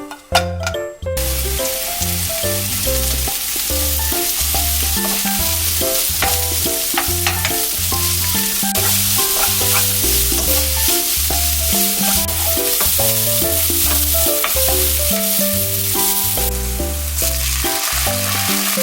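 Food sizzling as it fries in a pan, a steady hiss that stops near the end, with background music playing throughout.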